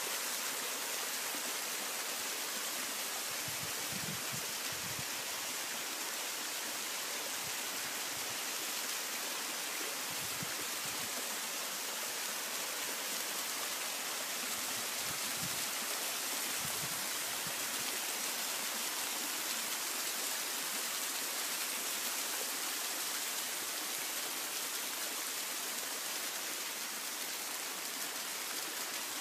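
Waterfall rushing steadily: a constant, even roar of falling water.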